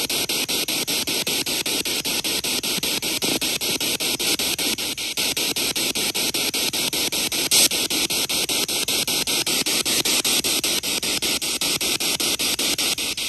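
Spirit box sweeping through radio stations: steady static hiss chopped into rapid even pulses, several a second, with one brief louder blip about halfway through.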